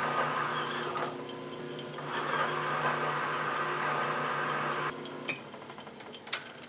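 Electric motor of a restored Atlas horizontal milling machine running with a steady hum, now running much better. About five seconds in it is switched off and winds down, followed by a couple of sharp clicks.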